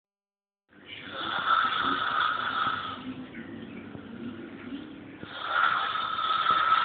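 Snoring: two long snores, the first starting about a second in and lasting about two seconds, the second starting about five seconds in, with quieter breathing between.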